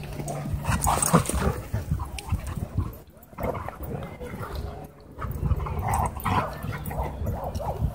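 A pit bull and another dog play-fighting, making short vocal noises, barks and whines, as they wrestle mouth to mouth.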